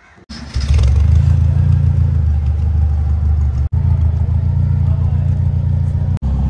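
Toyota Corolla KE70's engine running through its newly fitted exhaust: a steady low drone that starts abruptly a moment in, broken by two very brief silent gaps.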